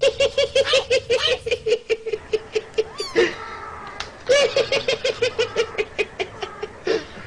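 High-pitched rapid laughter, a quick run of even 'ha-ha' pulses at one steady pitch, in two bouts with a short break about three seconds in. A brief gliding squeal sounds in the break.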